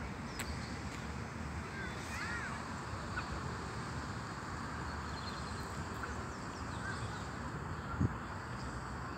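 Outdoor park ambience: steady background noise with a few short bird chirps, clearest about two seconds in. A single thump about eight seconds in is the loudest moment.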